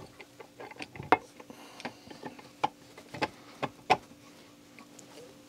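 Stainless steel bolts clicking and tapping against a painted metal casting as they are fitted into its bolt holes by hand: about a dozen sharp, irregular metal clicks, the loudest about a second in and near the four-second mark.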